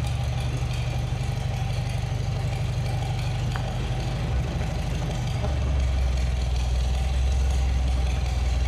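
Engine of the tow vehicle idling while the car is pulled out by chain. About five and a half seconds in the note drops deeper and gets slightly louder.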